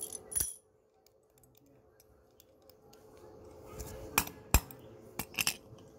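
Metal padlock and key being handled: one sharp metallic click just after the start, then a few more clicks and clinks about four to five and a half seconds in.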